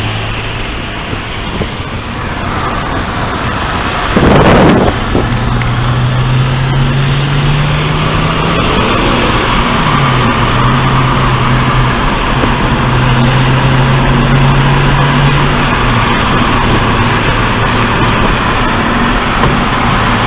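Car engine and road noise heard from inside the cabin while driving: the engine note climbs under acceleration, drops at a gear change about ten seconds in, holds steady, then drops again near sixteen seconds. About four seconds in, a loud burst of noise lasting under a second stands above the rest.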